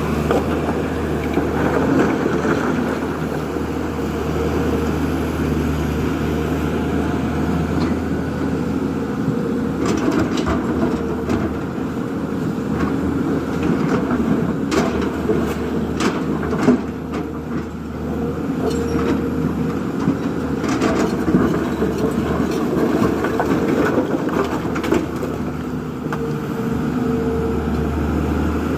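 Diesel engine of a JCB 3DX backhoe loader running steadily at work, with a series of sharp knocks and clanks through the middle stretch.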